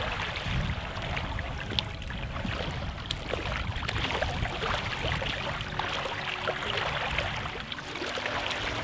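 Wind rumbling on the microphone over small waves lapping at a reservoir's stony shore, with scattered small splashes and ticks.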